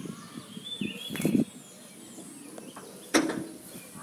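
Outdoor background with faint bird chirps and low rustling, then a single sharp knock about three seconds in.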